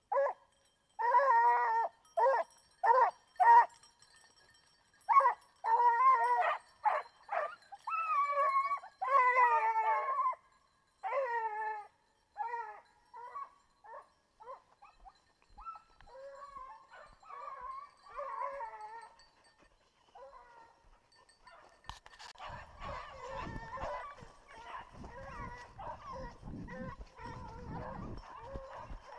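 A young Griffon Bleu de Gascogne hound baying: a quick run of short bays, then longer drawn-out howls, growing fainter after about twelve seconds as the dog moves off. From about twenty-two seconds a rustling noise takes over, with faint baying still behind it.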